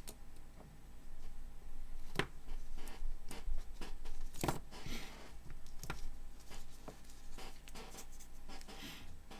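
Scattered sharp clicks and light knocks with soft rustling: hands handling an iPhone 7 logic board and bench power-supply leads while hooking them up.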